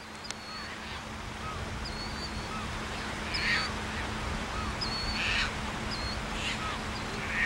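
Gulls calling as a flock takes flight, flushed by a running dog: about four harsh squawks, a second or two apart, over a steady hiss.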